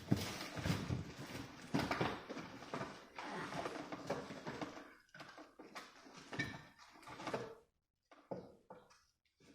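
Packaging being handled as an amplifier is worked out of its box: irregular rustling, scraping and light knocks, busiest in the first half and sparser near the end.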